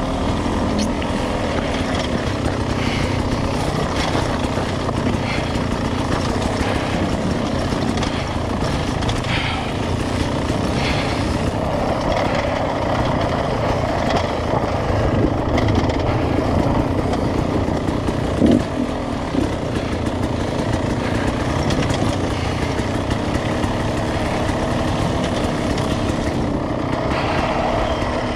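Dirt bike engine running with rising and falling revs as the bike is ridden slowly over a rocky ridge trail, with a sharp knock about two-thirds of the way in.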